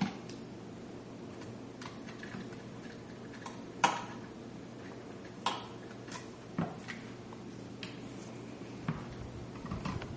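Small metallic clicks and ticks of a precision screwdriver working the screws of a graphics card's metal mounting bracket, irregular, with the sharpest clicks about four, five and a half and six and a half seconds in, over a faint steady hum.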